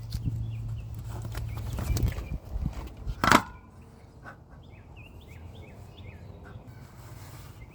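A low hum with knocking and clattering, then one sharp knock, the loudest sound, a little after three seconds. After it, birds chirp in short repeated calls.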